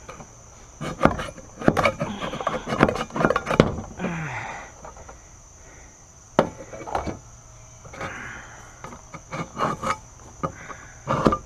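A knife's point and spine scraping and prying at a thin steel tin can, tearing the metal open in irregular spurts of sharp clicks, crunches and rasping scrapes.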